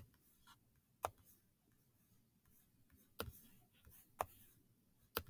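Computer mouse clicking in an otherwise quiet room: five sharp clicks spaced about a second apart, with fainter ticks between them.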